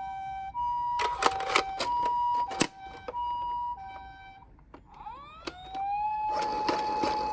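Japanese ambulance-style two-tone 'pee-po' siren alternating between a high and a low note about every half second, stopping near the four-second mark. About five seconds in, a wailing siren winds up in pitch and holds a steady note. Sharp clicks are scattered through it.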